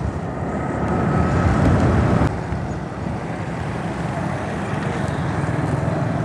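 Honda CD-70 motorcycle's small single-cylinder four-stroke engine running on the move, with road and wind noise; the sound drops a little about two seconds in.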